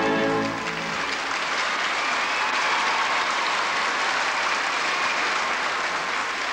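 The final chord of an orchestral waltz ends in the first second, then an audience applauds steadily.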